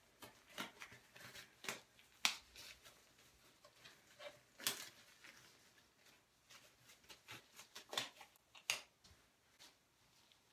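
Blue disposable gloves being pulled onto the hands: a run of sharp snaps and crinkles of the thin glove material, with a few louder snaps scattered through.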